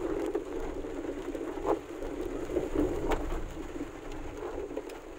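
Heavy rain falling on a vehicle's roof and windscreen, heard from inside the cabin as a steady dense patter with a few sharper taps.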